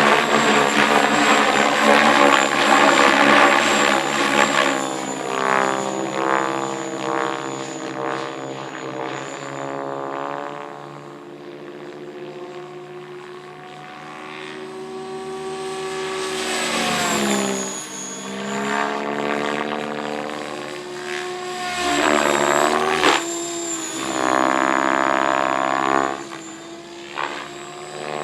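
Propeller aircraft engine running continuously. Its pitch swoops down and back up as it passes, once around the middle and again near the end.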